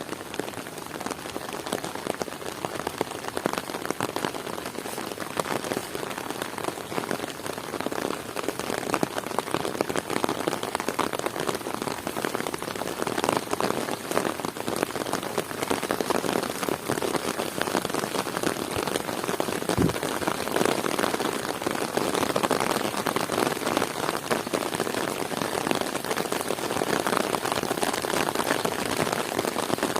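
Heavy rain falling steadily, a dense patter of drops hitting surfaces, with one brief low thump about two-thirds of the way through.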